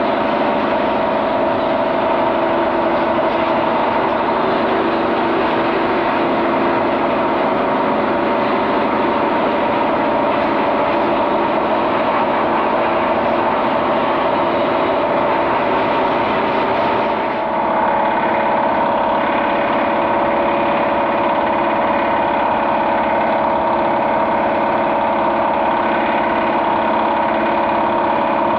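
A motor running steadily with a constant whirring hum, briefly dipping about 17 seconds in and then carrying on with a slightly different tone.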